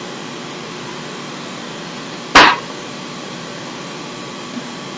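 One sharp, loud knock about two and a half seconds in, over a steady background hiss.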